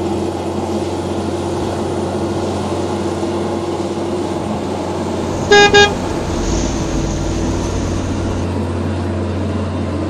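Large mining haul truck's diesel engine running steadily as it drives, with two short horn toots in quick succession a little past halfway.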